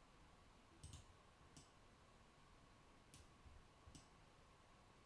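Near silence broken by a few faint computer-input clicks: a quick double click about a second in, then single clicks spaced out over the next three seconds, over a faint steady hum.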